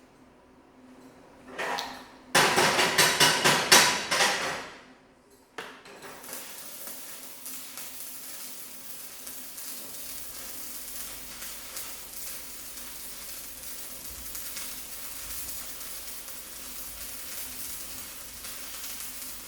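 Stick-welding arc from a rechargeable battery-powered welder: loud crackling as the arc is struck about two seconds in, then a steady sizzling crackle as the electrode burns from about six seconds on.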